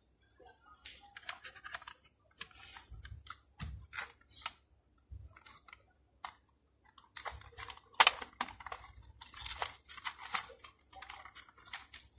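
Cardboard boxes and paper inserts of a phone's retail packaging handled at close range: a run of short irregular scrapes, taps and rustles, sparse at first and busier in the second half, with one sharp tap about eight seconds in.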